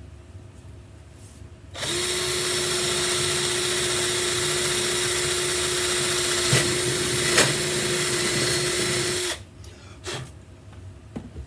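Cordless drill boring a control-knob hole through an acoustic guitar's top. It runs at a steady speed with an even motor whine from about two seconds in until it stops about nine seconds in, with two short clicks near the end of the run.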